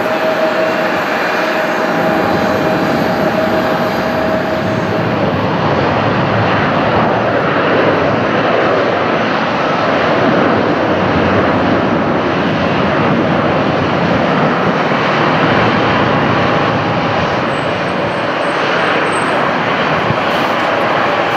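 An Embraer 175's twin GE CF34-8E turbofan jet engines running at takeoff thrust: a loud, steady roar. A whining tone in it fades out about five seconds in.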